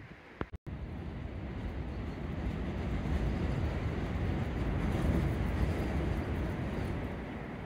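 Gale-force storm wind buffeting the microphone: a steady, low rumble that swells toward the middle. There is a brief dropout just after the start.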